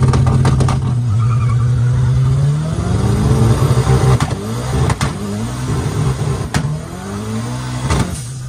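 Turbocharged car engine heard from inside the cabin, pulling hard under full throttle. Its pitch holds high for a couple of seconds, then climbs again through several quick gear changes, with sharp cracks at several of the shifts.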